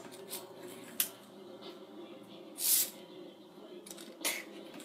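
Quiet room with small handling noises as toy cars are pushed across a bedspread: a sharp click about a second in, then two short hissy rustles.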